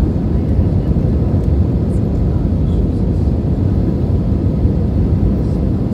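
Steady low rumble of an airliner's cabin on its landing approach: jet engines and rushing air heard from a window seat inside the cabin.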